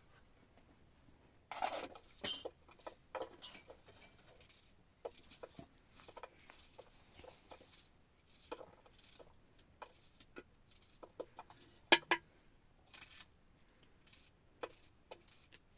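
Scattered knocks and clinks of hard objects being handled, with a longer clatter near the start and a sharp double knock about three quarters of the way through.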